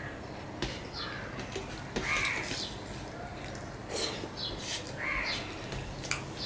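Close wet chewing and lip-smacking of a person eating rice and fish by hand, with short clicks. A crow caws twice in the background, about three seconds apart, and these two caws are the loudest sounds.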